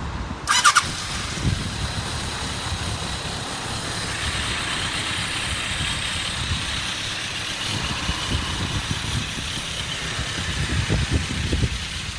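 Kawasaki ZRX1100's air-cooled inline-four running at idle through a KERKER slip-on silencer, a steady low exhaust beat that swells briefly near the end. A short burst of sharp clicks about half a second in is the loudest sound.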